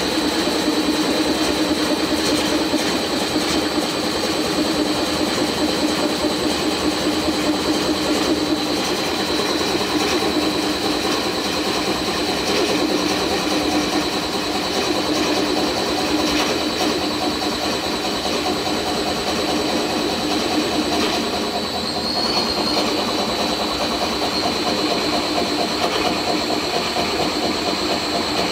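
Lathe spinning a large walnut blank while a bowl coring knife on a long handle is pushed into it, cutting out a core: a steady, loud mix of running machinery, cutting noise and a steady high-pitched whine.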